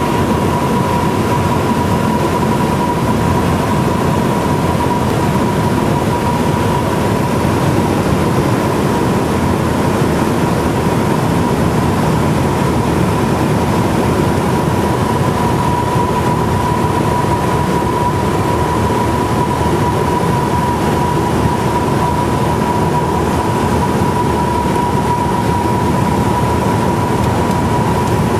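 Steady cabin drone of a Cessna 172's piston engine and propeller in flight, heard from inside the cockpit. A thin, steady high-pitched tone runs through it.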